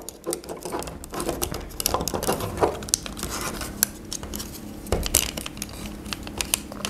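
Hard plastic parts of a Transformers Starscream action figure clicking and rattling as it is handled and its pieces are pushed and tabbed together: a steady run of small clicks, with sharper ones about two and a half and five seconds in.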